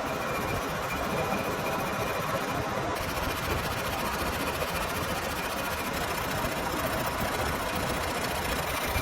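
Metal lathe running steadily: an even mechanical noise with a faint steady high whine.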